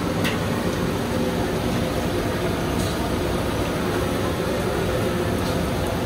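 Steady noise of a gas stove burner under an iron kadai of chilli bhajjis deep-frying in oil, with a few light clicks of a slotted spoon against the pan.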